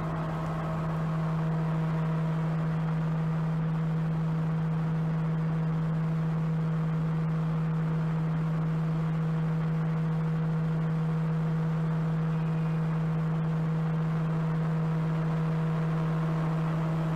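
Diesel multiple unit's engine idling while standing at the platform: a steady low hum at one unchanging pitch.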